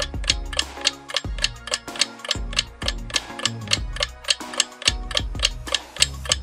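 Clock-ticking countdown sound effect, an even tick about three to four times a second, over background music with a changing bass line.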